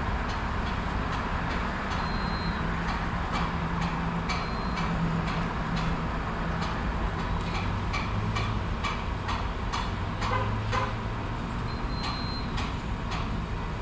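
Gas station ambience: a vehicle engine idling with a low hum, under irregular clicks and ticks that come more often after about six seconds, and three short high tones.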